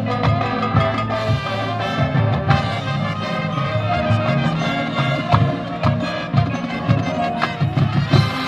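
Marching band playing: brass holding sustained chords over a drum line with repeated low drum hits.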